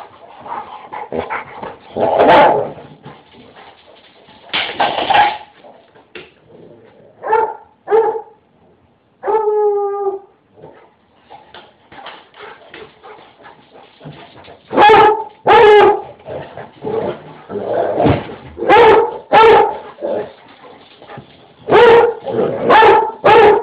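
Basset hound barking loudly and repeatedly while chasing another dog in play. The barks come in clusters, with one longer, drawn-out bay about nine seconds in.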